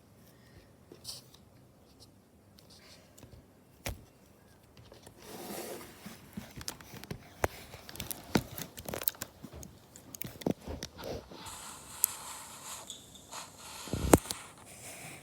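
Slime being handled: a long run of sticky clicks, pops and scraping that starts about five seconds in, with a louder knock near the end.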